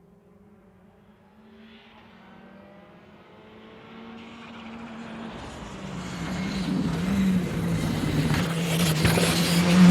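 A rally car approaching at speed on a tarmac special stage. Its engine is faint at first and grows steadily louder as it nears, with a few small shifts in pitch.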